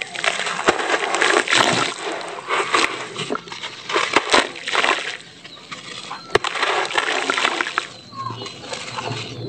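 A wet sand-cement block crumbling under squeezing hands, with gritty lumps and sand splashing into a tub of water. The crackly crumbling and splashing come in uneven surges, with sharp clicks, and ease off briefly about halfway and again near the end.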